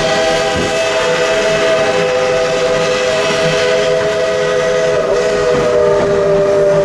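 Narrow-gauge steam locomotive's chime whistle blowing one long, steady chord of several notes.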